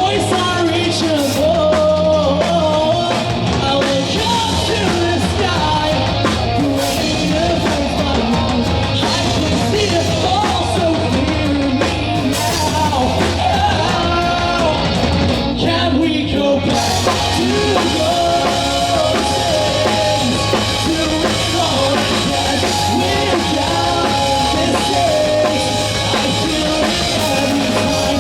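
Rock band playing live: a sung lead vocal over electric guitar, bass and drum kit. The cymbals thin out briefly about halfway through.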